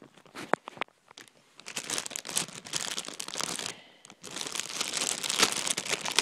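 Plastic packaging crinkling and tearing as a cable is worked out of it: a few scattered crackles at first, then long stretches of dense crinkling, broken by a short pause about four seconds in.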